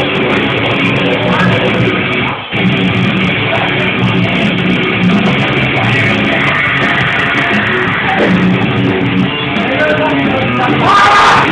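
Loud heavy rock music driven by guitar, with a brief dip about two and a half seconds in.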